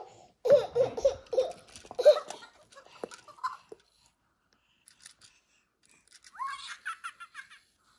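High-pitched, baby-like giggling in a quick run of short bursts over the first few seconds. Near the end comes a short squeaky babbling phrase that rises in pitch.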